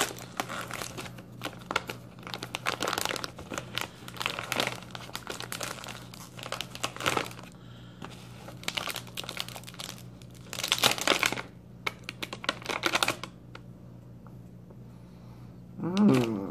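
Plastic wrapper of a packaged green tea cake crinkling and rustling in repeated bursts as it is pulled and torn open by hand, with a lull a few seconds before the end.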